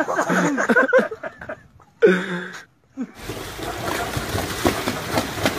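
People's voices, then, from about three seconds in, continuous splashing as one mute swan charges another across the water.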